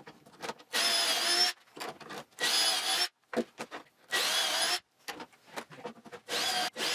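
Cordless drill boring pocket holes into plywood through a pocket-hole jig with a stepped bit, in short runs: three separate bursts of whine in the first five seconds, then quicker repeated bursts near the end.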